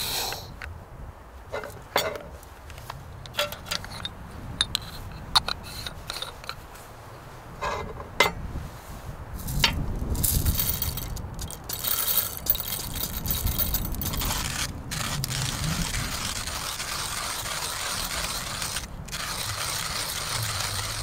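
Small metal coffee-kit cups and lids clinking and clicking as they are handled, then coffee beans rattling into a hand coffee grinder about ten seconds in. After that the grinder's crank is turned, giving a steady grinding of the beans.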